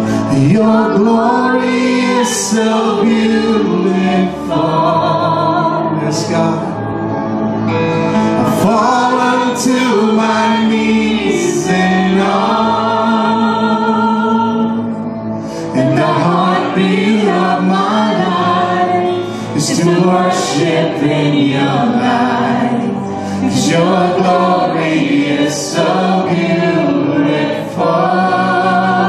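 Live church worship band performing a praise song: a male lead singer and male and female backing vocalists singing together over band accompaniment, with short breaks between sung phrases.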